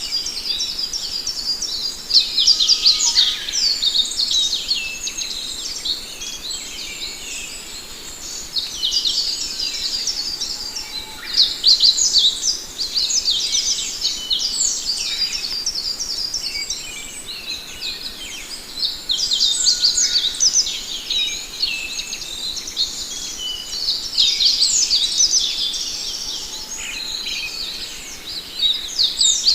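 Several songbirds chirping and singing together in a continuous dense chorus of quick, high-pitched notes and trills, some louder bursts at times.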